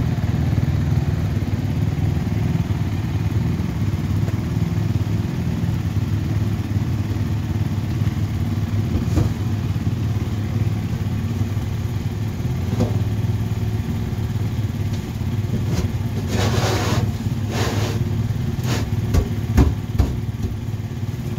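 Steady low drone of an idling engine. About sixteen and seventeen and a half seconds in come two short rustling bursts as seat cushions are handled, then a few soft knocks near the end.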